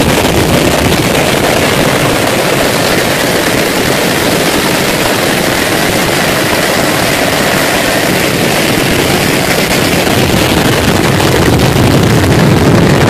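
Jet airliner engines at takeoff thrust, blasting a loud, steady rush of noise that grows slightly louder near the end.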